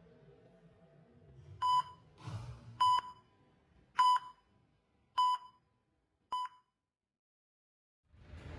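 Five short electronic beeps, all at the same mid pitch, spaced a little over a second apart, the last one shorter than the others.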